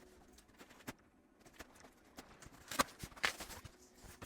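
Cardboard box and packing being handled while it is opened: scattered light taps and rustles, with two louder crackles a little under three seconds in.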